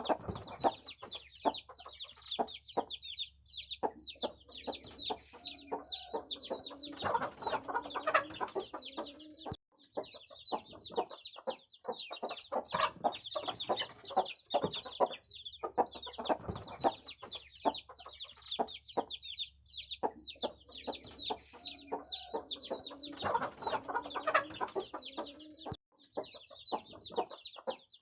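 A flock of aseel chicks peeping continuously, with many short, high, falling cheeps overlapping. A lower, longer call comes twice, about a quarter of the way in and again near the end.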